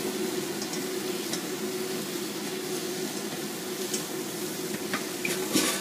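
Shredded fuzzy melon sizzling in a frying pan while it is stirred and tossed with a spatula and chopsticks, with light scrapes and taps of the utensils over a steady low hum. A louder knock of utensil on pan comes near the end.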